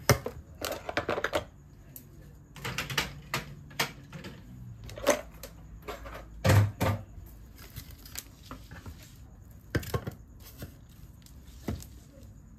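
Gel nail polish bottles being put back into a clear plastic display rack: a string of irregular clicks and knocks, some in quick runs of several.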